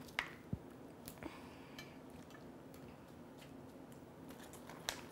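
Kitchen tongs gripping and lifting dressed romaine lettuce in a plastic bowl: a few scattered light clicks and taps, the loudest near the end, over faint steady room hum.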